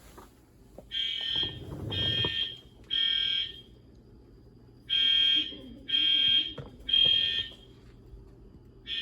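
EST fire alarm horns sounding the temporal-three evacuation signal: three short high beeps about a second apart, a pause of about a second and a half, then three more. The pattern starts again near the end.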